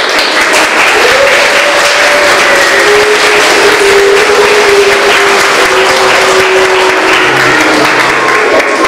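Audience of schoolchildren applauding, a dense continuous clapping, with a few long held pitched notes sounding over it.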